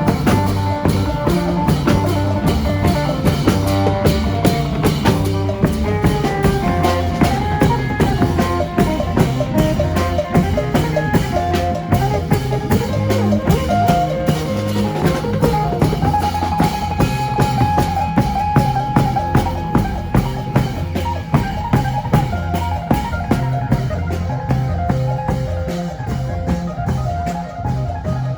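Isan lam phloen band music: a plucked phin lute melody over a steady, driving drum-kit beat.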